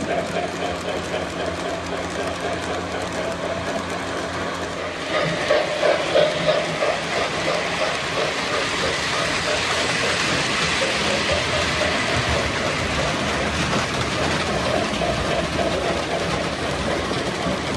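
Lionel O gauge model trains running on a layout: a steady electric motor hum with wheels rattling on the rails. The rattle swells about five seconds in and stays louder as a train comes closer.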